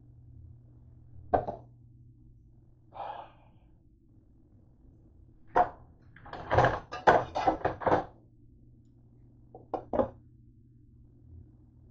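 Kitchen cookware clattering: a single knock, then a run of clattering as metal pans, racks and lids are shifted about, then a few quick knocks as a glass lid is set onto the cooking pot. A steady low hum runs beneath.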